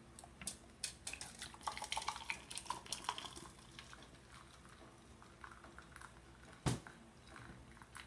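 Irregular light metallic clicks and crackles from the aluminium soda-can cooker being handled, then one sharp knock about seven seconds in.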